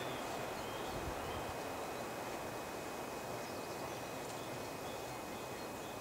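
Woodland ambience: a steady outdoor hiss with faint, scattered bird chirps.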